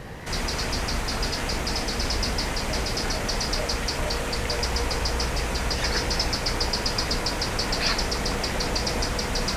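Electric bicycle being ridden: a steady rumbling rush of tyres and air, with a fast, high ticking over it.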